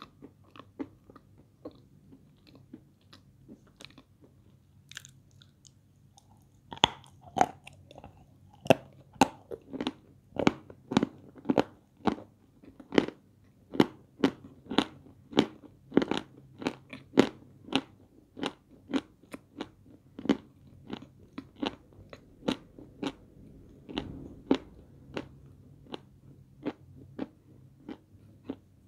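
Close-up crunchy chewing of chunks of peschanka, a sandy edible clay. The first few seconds hold only faint, sparse crunches; from about seven seconds in come sharp, crisp crunches, about two a second.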